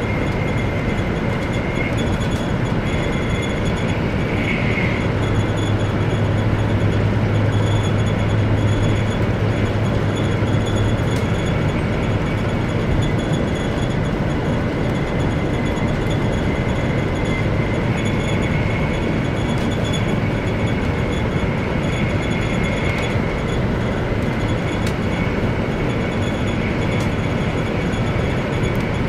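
Steady running noise of a 100 series Shinkansen at speed, heard inside the passenger cabin: a constant rumble of wheels on rail, with a faint high whine. A low hum swells for several seconds a few seconds in, then fades back.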